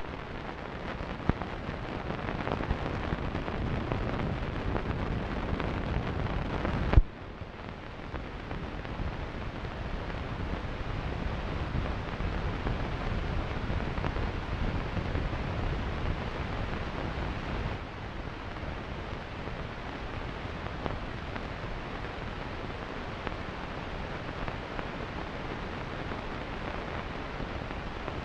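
Steady hiss and rumble of an old film soundtrack, with no music or voice. A few sharp pops come near the start, and a louder click about seven seconds in, after which the noise drops in level.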